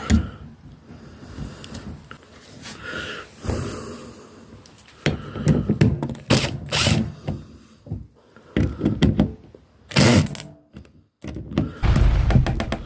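Irregular knocks, clicks and thunks of hand tools and drill bits being handled, with the loudest clatter near the end.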